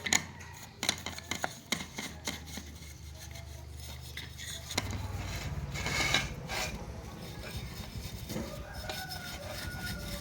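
Small metal and plastic clicks, clinks and scrapes of hand tools and parts being handled during repair work on a monitor, over a low steady hum that grows louder about halfway through.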